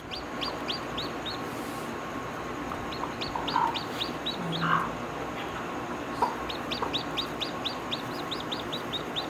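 Chicks peeping in quick runs of short, high, falling notes, with a couple of lower clucks from the hen about four seconds in.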